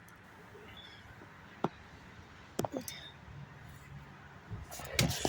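Quiet background with a faint low hum and a handful of sharp clicks. The sharpest click comes about one and a half seconds in, a few more follow near the middle, and one comes near the end.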